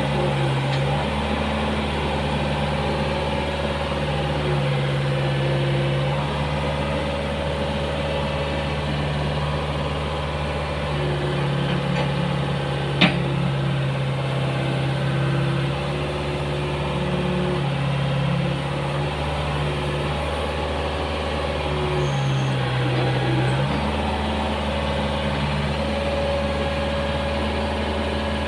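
Komatsu PC50 mini excavator's diesel engine running while the boom and bucket are worked, its note stepping up and down every few seconds as the hydraulics take load. One sharp click about halfway through.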